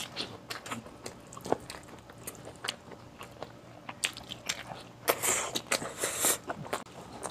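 Close-miked mouth sounds of a person eating beef stew and rice by hand: chewing with many short, wet lip-smacking clicks, and a denser stretch of wet noise about five seconds in.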